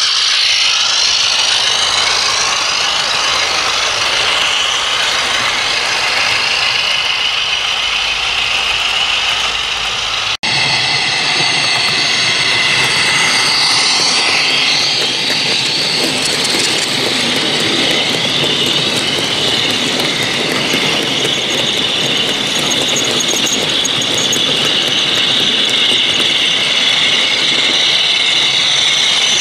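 Sound-decoder diesel engine sound from OO gauge model locomotives, played through the models' small speakers. There is a short break about ten seconds in, after which the engine sound comes from a Class 56 running past with a train of hopper wagons.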